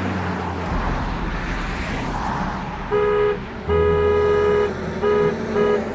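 Cartoon sound effect of a truck driving off: a rushing engine rumble, then from about three seconds in a run of car-horn honks, some short and some long.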